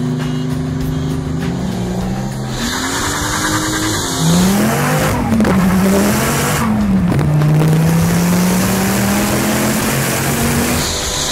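Twin-turbo Dodge Viper V10 pulling hard at very high speed, heard from inside the open-top car over heavy wind rush. The engine note swings up and down a few times in the middle, then climbs slowly and steadily.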